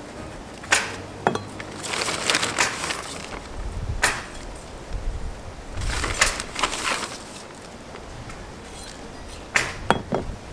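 Rustling of a plastic bag of worm castings and crumbly soil being handled and pressed around a potted plant, with several sharp taps and clicks scattered through, two close together near the end.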